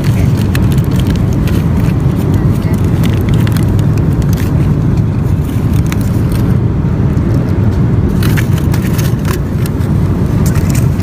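Steady low drone of an airliner cabin in flight, with aluminium foil crinkling in short crackles as the foil lid of a hot in-flight meal dish is peeled back; the crinkling pauses briefly past the middle and resumes.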